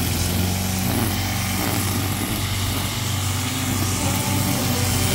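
Backpack brush cutter's small engine running steadily at working speed, its nylon-line trimmer head whirring through grass.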